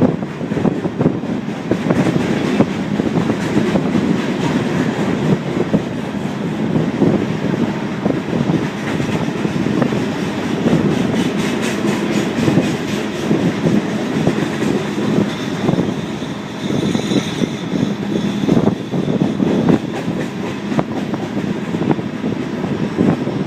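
Freight train cars rolling past, their wheels clicking steadily over the rail joints, with a brief high wheel squeal about two-thirds of the way through.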